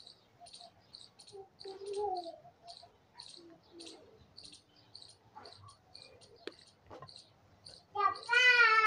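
Steady chirping of short high chirps about twice a second, with faint scattered knocks; near the end a loud, high, drawn-out cry lasting about a second.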